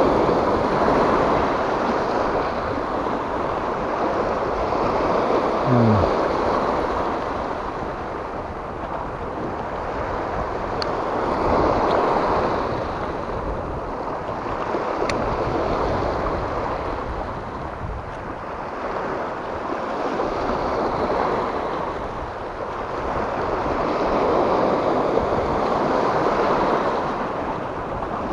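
Small waves breaking and washing over a rocky shore, the surf swelling and fading every few seconds.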